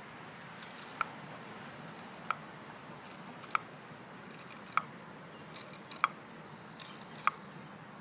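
Haglöf increment borer being twisted out of a tree trunk by its handle, its bit creaking in the wood with a short, sharp click about every second and a quarter as the handle is turned.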